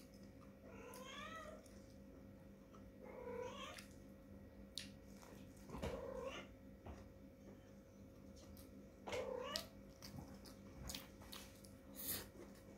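Small kitten meowing four times, a few seconds apart, with scattered sharp clicks in between.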